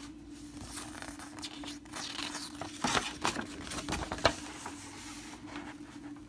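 Cardboard box card and paper insert being handled and unfolded: irregular rustling and crinkling, with a few sharper snaps about three and four seconds in, over a faint steady hum.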